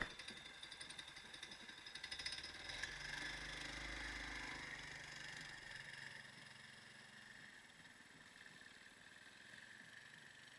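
Small motor all-terrain vehicle's engine running, with rapid clicking and clatter in the first three seconds; the engine is loudest from about three to six seconds in, then fades to a faint steady hum.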